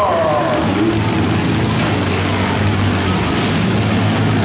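Engines of several demolition-derby minivans running together, a steady loud drone with a few revs rising and falling.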